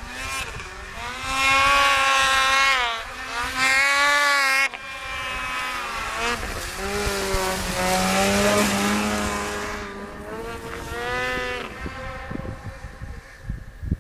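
Snowmobile engines revving as the sleds ride across the snow, the pitch climbing and falling several times. The engines are loudest about one to four seconds in and again around eight to nine seconds, and fade near the end.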